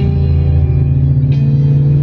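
Music from a car's satellite radio playing inside the cabin, with a new note coming in about a second and a half in, over a steady low hum from the moving car.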